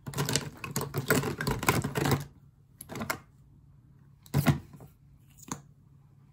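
Makeup containers and tools clicking and clattering as they are picked up and handled close by: a dense run of clatter for about two seconds, then three short clicks spaced over the next few seconds.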